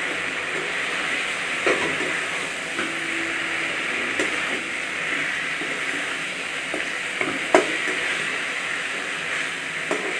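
Masala sizzling in a kadhai on a gas burner as fried rohu fish pieces are stirred into it with a metal spatula. The spatula scrapes and knocks against the pan a few times, the loudest knock about seven and a half seconds in.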